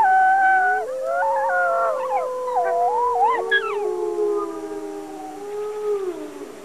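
Wolves howling together: several long howls overlap at different pitches, a higher wavering one over a lower one that slides slowly downward. A young wolf pup is among the howlers. The howls fade out near the end.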